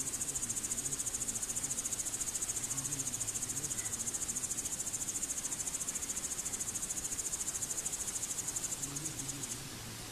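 High-pitched, fast-pulsing chirring trill of an insect, like a cricket or bush-cricket stridulating, which stops about nine and a half seconds in.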